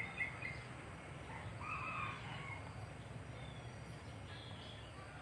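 A rooster crowing faintly, one call about two seconds in, over a steady low hum.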